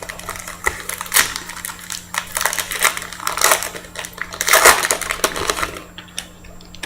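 Football trading cards being handled and flicked through one after another: quick, irregular clicks and rustles of card stock, busiest about four and a half seconds in and dying away near the end.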